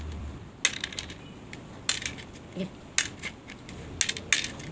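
Small hard coloured craft pieces clicking as they are picked out of a plastic tub and dropped onto a plastic plate, a scattering of sharp irregular clicks.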